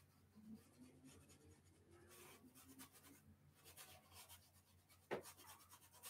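Faint, repeated scratchy strokes of a thin paintbrush dabbing and dragging acrylic paint across a stretched canvas, with one sharper knock about five seconds in.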